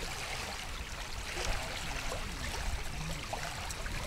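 Small waves lapping steadily on a pebbly shore, with wind rumbling on the microphone.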